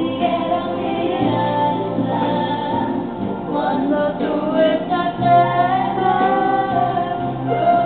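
Background music with a woman singing.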